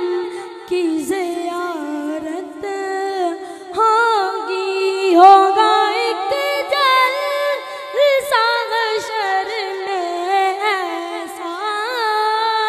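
A boy singing an Urdu naat unaccompanied into a microphone, drawing out long held notes with ornamented slides up and down in pitch.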